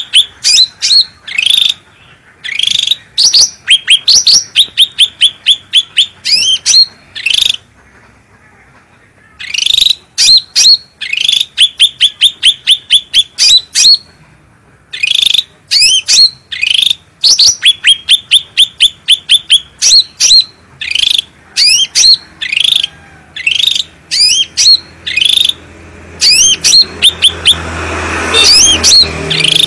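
Cucak rante bird singing loudly in runs of sharp, rapidly repeated chirping notes, with short pauses between the runs. A low hum rises under the song near the end.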